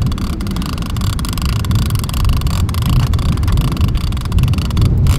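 Heavy fishing reel's drag clicking rapidly and steadily as a hooked shark pulls line off against it, over a loud low rumble.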